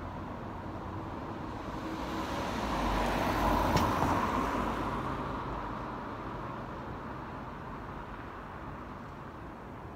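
A road vehicle drives past. Its noise swells to a peak about four seconds in and then fades away, over steady street noise.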